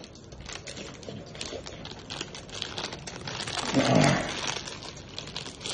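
Plastic ice-cream bar wrapper crinkling as it is handled and opened: a string of small crackles. A short voiced sound from the man comes about four seconds in.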